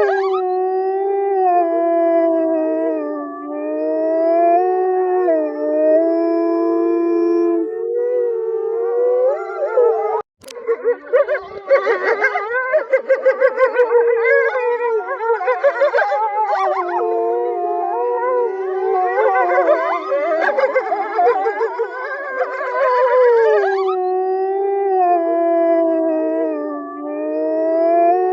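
Several wolves howling together, their long held howls overlapping at different pitches. About ten seconds in the sound drops out for a moment. It then comes back as a denser chorus of wavering howls and quick yips, which settles into long held howls again near the end.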